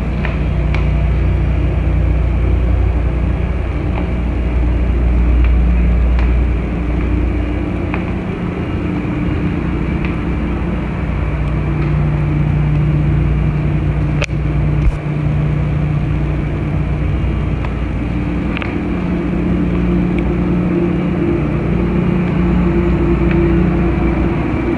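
Steady low drone and hum of a cruise ship's machinery in a below-decks crew corridor, with a deep rumble under it and a sharp click about fourteen seconds in.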